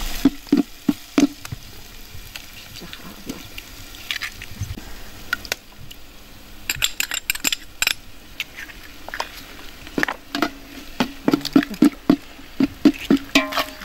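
Metal spoon stirring rice in water in a metal cooking pot, knocking and scraping against the pot's side in a run of sharp clicks: a cluster near the start, another about seven seconds in, and a longer run from about ten seconds.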